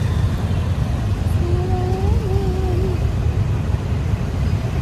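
Wind rumble on the microphone and traffic noise while riding on the back of a motorbike, with a short wavering tone about one and a half seconds in.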